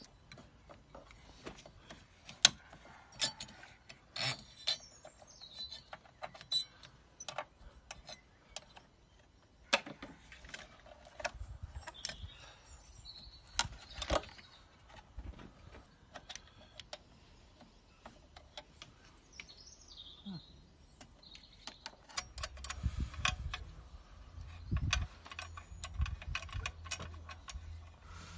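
Irregular sharp clicks and metallic knocks of hand tools working on a car battery during a battery replacement, with a low rumble in the last few seconds.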